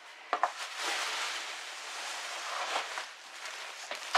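Plastic wrapping rustling and crinkling as a heavy plastic-wrapped pouf is pulled out of its box, with a couple of sharp knocks about half a second in.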